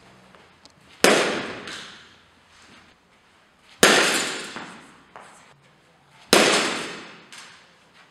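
Softball bat striking pitched softballs three times, about two and a half seconds apart: each hit is a sharp crack that rings out in the echo of a large indoor hall.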